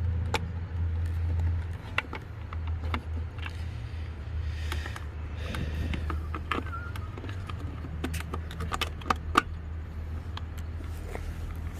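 Scattered clicks and knocks of hands working plastic and metal headlight parts on a car, over a steady low hum.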